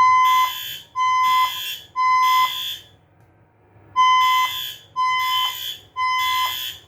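Fire alarm evacuation signal sounding in the temporal-three pattern: three half-second tone blasts about a second apart, a pause, then three more. This is the standard evacuation tone that alternates with the system's recorded voice message.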